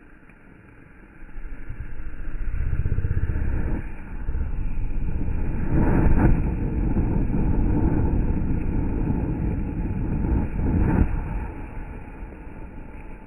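Diwali anar (flowerpot fountain firework) spraying sparks with a steady rushing noise. The noise rises sharply about a second in, surges briefly twice and eases off near the end.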